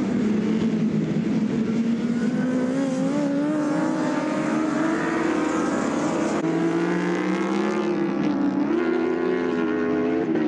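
Racing motorcycle engines running hard at high revs on track. The note climbs steadily as the bikes accelerate, changes abruptly about six seconds in, and steps up again near the end.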